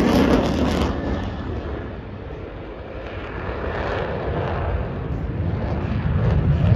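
F-35 fighter jet's engine roaring in flight, a dense rumble that fades over the first couple of seconds and then swells again toward the end as the jet comes back.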